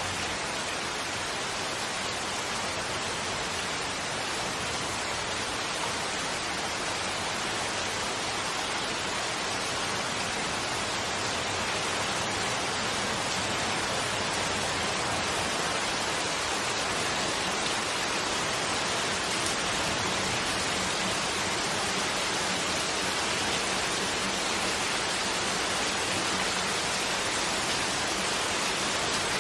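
Steady rain falling, a constant even hiss that does not let up.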